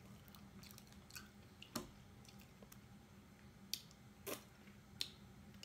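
Quiet eating of cooked mussels by hand: a handful of short, scattered clicks as the shells are pried apart and eaten from, with small mouth sounds, over a faint steady hum.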